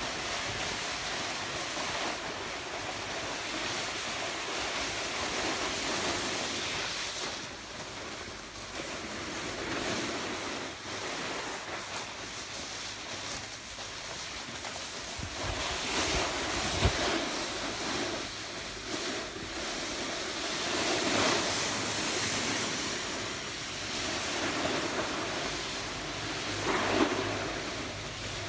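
Board edges scraping and hissing over snow while sliding downhill, swelling and fading with the turns, with wind buffeting the microphone. Two sharper knocks, one a little past halfway and one near the end.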